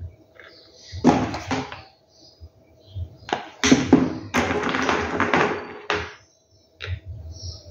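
Handling noise of gravel stones being pressed onto a cardboard tube and a hot glue gun being moved on a tabletop: irregular taps, knocks and scraping, busiest from about three and a half to six seconds in.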